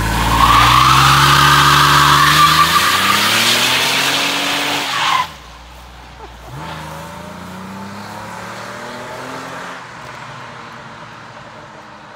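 Jeep Liberty's 3.7-litre V6 revving hard while the rear tyres squeal in a burnout, the squeal cutting off suddenly about five seconds in. Then the engine revs climb again as the Jeep accelerates away, fading into the distance.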